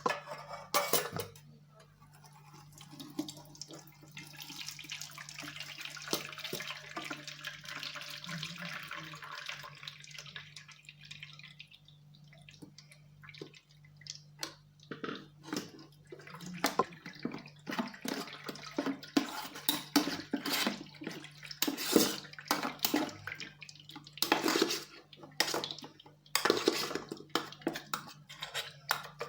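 Blended lemon juice poured through a kitchen strainer, a steady pouring splash for several seconds. This is followed by a long run of short scrapes and clinks as a spoon presses the pulp against the strainer.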